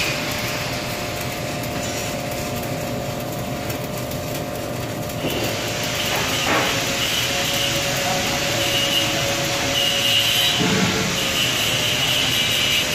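Electric arc welding on a steel pipe joint: the arc hisses and crackles steadily, growing fuller about five seconds in, over a faint steady hum.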